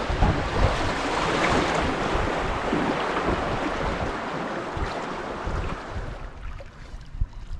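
Rushing, churning river water as a canoe runs a fast riffle, with wind buffeting the microphone in low thumps. The rush fades out near the end.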